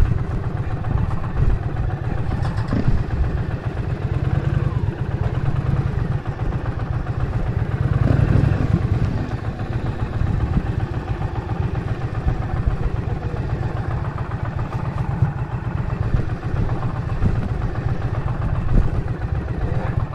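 Indian Challenger's V-twin engine idling with a steady, fast low pulsing, swelling briefly about eight seconds in.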